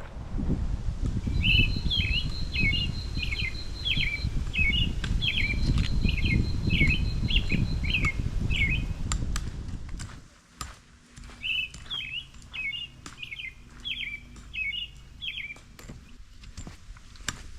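A songbird singing two phrases of rapid repeated notes, the second after a pause of about three seconds. A low rumble, like wind on the microphone, runs under the first phrase and stops about ten seconds in, after which light ticks are heard.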